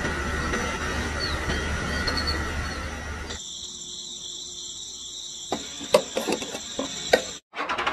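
A steady low rumbling noise, then from about three seconds in a steady high-pitched insect chirring. Near the end come a handful of light clicks and taps as a small plastic toy fuel nozzle is handled.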